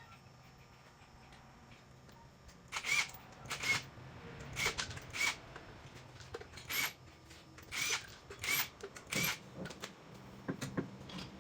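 Impact wrench running in about nine short bursts, often two close together, on wheel lug nuts.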